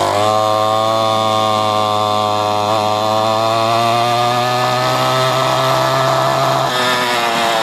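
Trailmaster 125 pit bike's 125cc single-cylinder four-stroke engine held at full throttle on a top speed run, a steady high-revving note that creeps up slightly in pitch and breaks up near the end.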